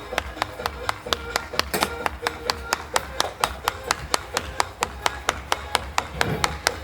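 Gas stove's electronic igniter sparking, giving rapid even clicks at about five a second, with faint music underneath.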